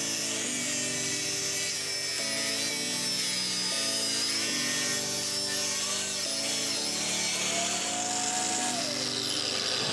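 Angle grinder with a cutting disc, running on a roller carriage stand and cutting through steel square tube: a high, wavering whine with a gritty hiss from the cut. Near the end the sparks stop and the disc spins free. Background music with steady chords plays underneath.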